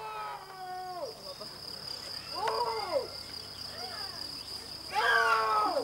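A voice sounding drawn-out notes that slide up and fall away, about four times, the last the loudest, over a steady high-pitched whine.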